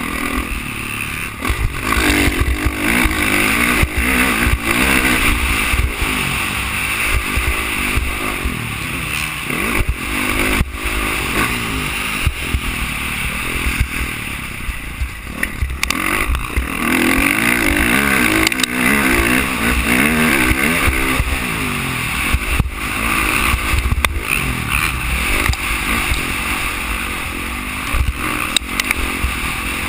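Dirt bike engine revving up and down repeatedly as it is ridden hard on a motocross track, heard from a helmet-mounted camera with wind buffeting the microphone. Scattered sharp knocks from the rough track run through it.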